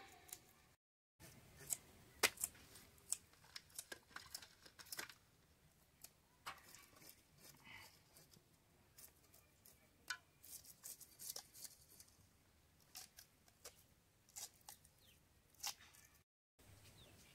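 Katla fish being scaled and cut on a boti blade: irregular short, sharp scraping and snicking strokes, several a second, as the fish is drawn against the fixed curved edge.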